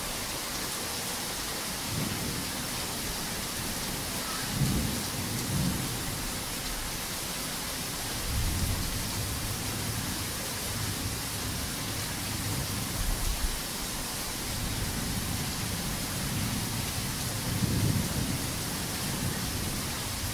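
Heavy rain falling in a steady hiss, with thunder rumbling in several low swells that rise and fade, the strongest about five seconds in, in the middle and near the end.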